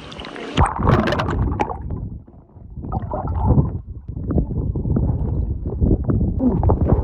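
Water splashing and sloshing right against a phone's microphone as a swimmer strokes through deep water holding it, with gurgles and knocks. It turns loud and rough about half a second in and eases briefly around two seconds.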